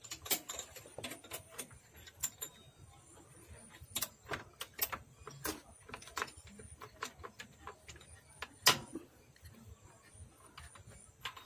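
Irregular metallic clinks and knocks of steel gears and shafts being handled and seated inside an open Kamco power tiller gearbox casing, with one sharper knock about nine seconds in.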